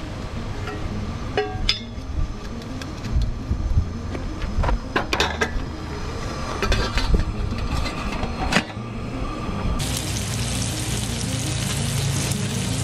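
Stainless steel pot and mug clinking as they are handled at a camp stove, a string of sharp metallic clinks. About ten seconds in, bacon sizzling steadily on a Blackstone griddle.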